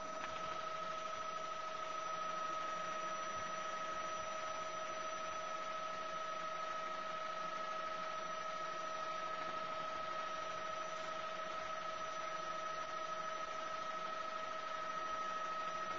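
Helicopter cabin noise in flight: a steady hiss with a constant high whine in two tones.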